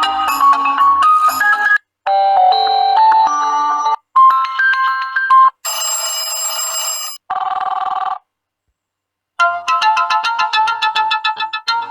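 Built-in ringtones of the imo app previewed one after another: about six short melodic tones, each cut off abruptly after a second or two as the next is selected, with a pause of about a second partway through.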